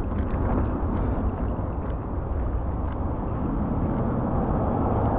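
Steady wind rush and road noise from riding an open vehicle along a road at speed, with a constant low hum underneath.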